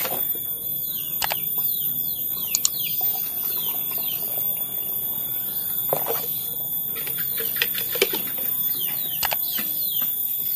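Small birds chirping over and over with short, quick downward-sliding calls, with a few light clicks and knocks of a plastic spray bottle being handled.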